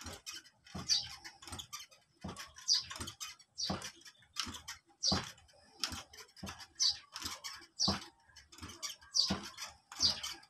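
Wooden rocking chair creaking and tapping in a steady rhythm, about one short squeaky creak every two-thirds of a second, as it rocks with a cat on its seat.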